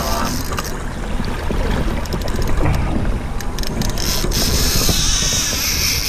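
Wind buffeting the microphone and water sloshing aboard an open fishing boat, with a few light knocks about halfway through as a Cannon Magnum downrigger is handled.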